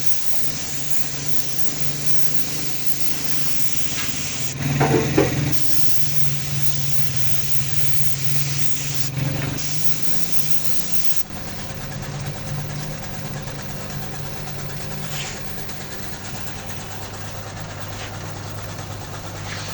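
A small motor or machine running steadily with a hiss, with a short louder sound about five seconds in.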